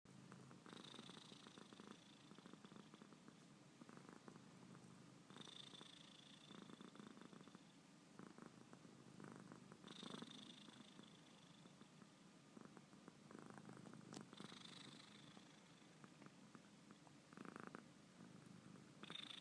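A sleeping cat snoring faintly, in slow, even breaths that swell about every four and a half seconds, each with a thin high note.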